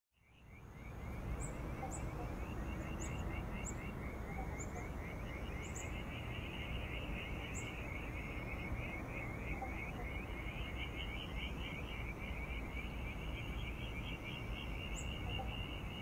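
Dusk wetland ambience: a continuous chorus of rapid pulsing trills, with a few short high chirps scattered through and a steady low rumble underneath. It fades in at the very start.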